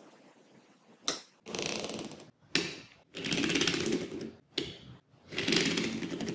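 Small magnetic balls clicking and rattling together as they are handled. A sharp snap is followed by about a second of rapid rattling, three times over.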